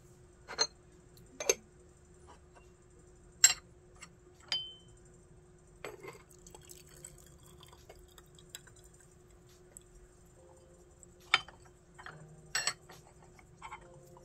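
Gongfu teaware clinking and tapping as cups, lid and vessels are handled and set down: about eight sharp knocks spaced irregularly, the loudest about three and a half seconds in, and one a second later leaves a brief ringing tone.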